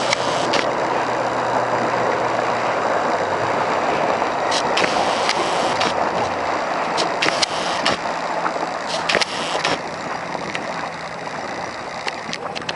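Four Winns 210 Horizon boat running on the water: a steady rush of water and wind over the engine, with the low engine tone fading away partway through and scattered sharp clicks and knocks later on.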